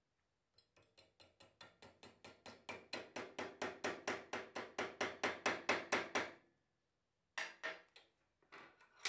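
A rapid run of light metallic taps, about five a second, growing steadily louder, from work on a brass rod clamped in a bench vise. After the run stops there is a short pause and then a few more single taps near the end.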